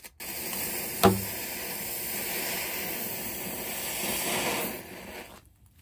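Fuse tip coated with dried igniter primer mix in PVA glue burning with a steady hiss as it throws sparks, with one sharp pop about a second in; the hiss dies away near the end.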